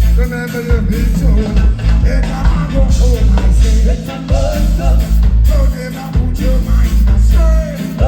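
Live reggae band playing with a heavy, pulsing bass line under a singer's wavering vocal.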